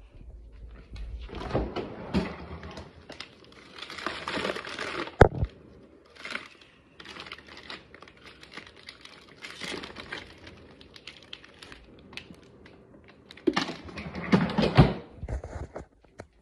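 Crinkling and rustling of popsicle packaging being handled, in a few bursts, with one sharp knock about five seconds in.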